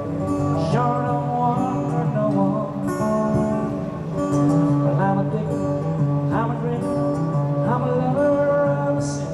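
Takamine acoustic guitar strummed live in a steady mid-tempo groove, with short rising gliding notes sounding over the chords about five times.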